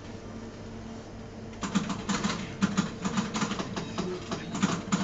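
Pinball machine in play, with a steady low hum under it. Somewhat under two seconds in, a fast, irregular run of sharp mechanical clacks starts as the flippers fire and the ball strikes the playfield.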